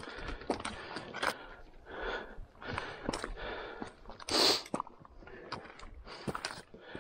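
A hiker breathing hard during a steep scramble, with short clicks and scuffs of boots and gear on rock and loose stones; one heavy breath stands out about four and a half seconds in.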